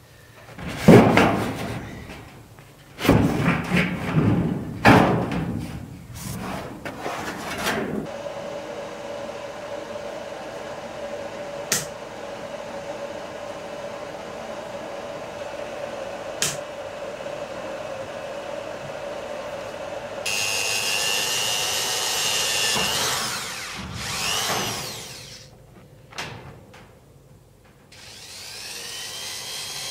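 Thin steel cladding sheet handled in loud, irregular clattering bursts, then a steady hum with two sharp clicks. Later a cordless drill-driver whirs up in pitch twice, driving wood screws to fix the sheet.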